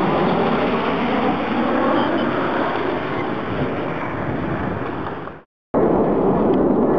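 F-16 fighter jet flying overhead: loud, steady jet noise, with a faint tone falling in pitch during the first few seconds. The sound drops out for a moment about five and a half seconds in, then the jet noise comes straight back.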